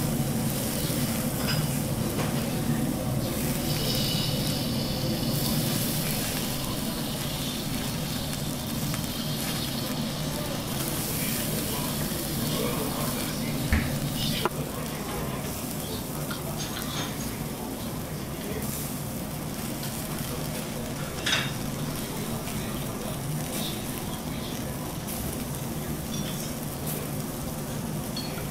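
Beef and horumon (beef offal) sizzling steadily on a wire grill over a charcoal burner. Metal tongs click sharply against the mesh a couple of times midway.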